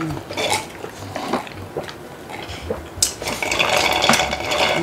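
Eating sounds at a meal table: chopsticks and utensils clicking against cup-noodle cups and dishes, with chewing and slurping. About three seconds in, a steadier, louder rustling and slurping noise takes over.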